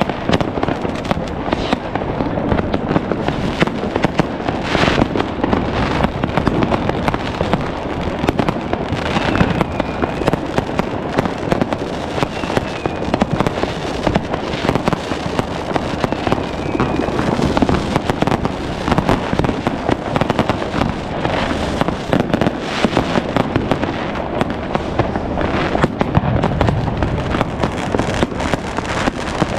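New Year's Eve fireworks: a dense, continuous barrage of firecrackers, bangers and rocket bursts, with many overlapping bangs and crackles and now and then the whistle of a rocket.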